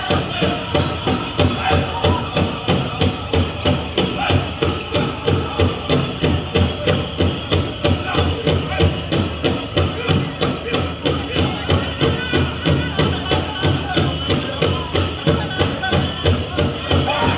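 Powwow drum group playing a chicken dance song: a big drum struck in a steady fast beat, about three beats a second, with voices singing over it and the dancers' bells jingling.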